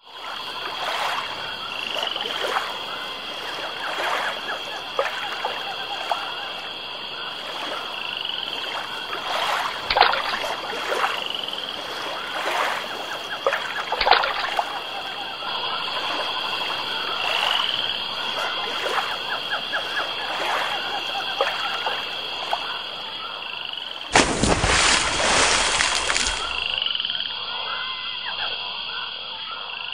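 Night chorus of frogs croaking over a steady high-pitched drone, with short rising calls every few seconds. About 24 seconds in comes a loud splash lasting about two seconds.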